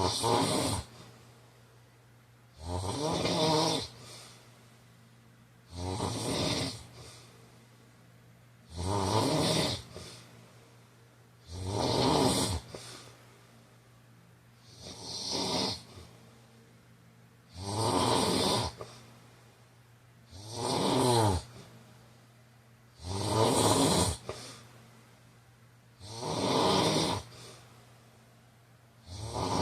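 A man snoring steadily in sleep, one rattling snore about every three seconds, each lasting about a second.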